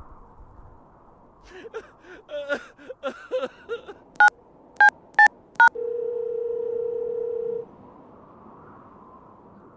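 Telephone keypad tones: four short beeps being dialled, then a steady tone held for about two seconds. Before them come a few short warbling chirps.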